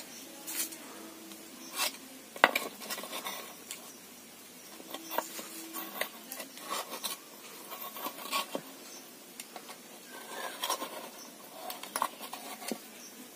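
Metal utensils and dishes clinking and scraping in irregular light knocks as cooked pitha are lifted out one by one; the sharpest clink comes about two and a half seconds in.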